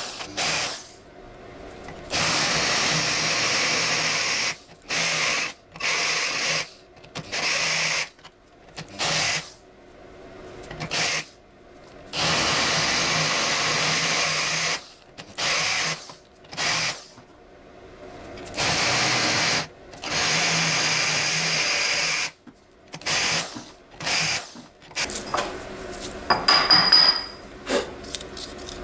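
Electric drill counterboring screw holes in a steel jaw blank, run in repeated bursts, some a few seconds long and others brief. A short high squeal near the end.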